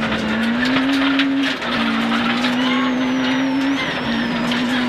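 Rally car engine at high revs under hard acceleration, heard from inside the cabin, with two upshifts: one about one and a half seconds in, another near four seconds. Gravel and stones clatter against the underbody throughout.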